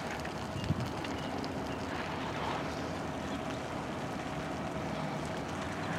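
Steady low rumble of a fire engine's motor running, with a faint steady hum over it and one small knock under a second in.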